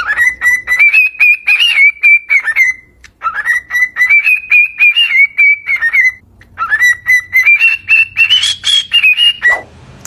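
A bird whistling in three long phrases, each a rapidly pulsing whistle held near one pitch that rises slightly at its start and wavers, with short breaks between them.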